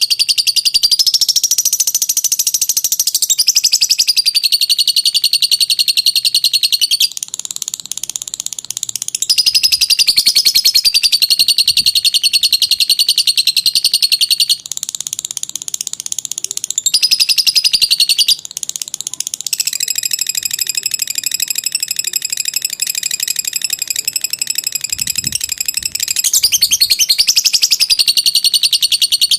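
Lovebird's long ngekek song: a continuous, very rapid, high-pitched chattering trill that shifts in pitch and loudness every few seconds without a break.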